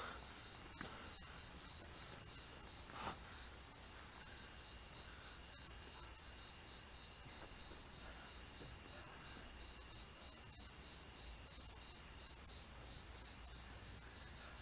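Faint, steady chirring of insects.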